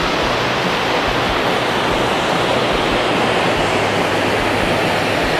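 River water pouring over a low weir, a steady even rushing.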